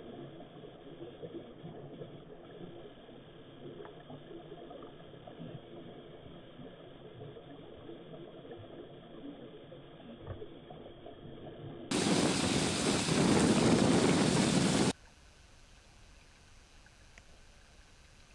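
Underwater sound from a GoPro Hero4 in its waterproof housing, slowed down with the slow-motion picture: a muffled, low rush of water noise with a few faint ticks. About twelve seconds in, a loud, even rushing noise sets in, lasts about three seconds and cuts off abruptly. After it comes a quiet, steady hiss.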